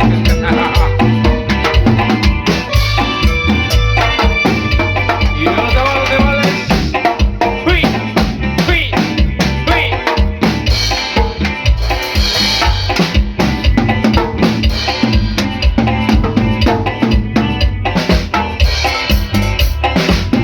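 Music with a prominent drum kit playing a steady beat: kick drum and snare hits over a strong bass line, with other pitched instruments beneath.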